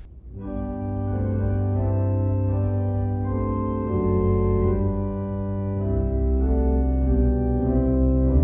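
Organ playing slow sustained chords with a deep bass line, entering about half a second in: the closing postlude after the benediction.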